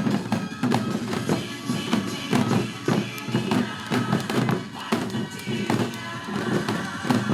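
Janggu (Korean hourglass drums) struck together in a fast, even pattern of sharp strokes, played along to recorded trot backing music with a sustained melody.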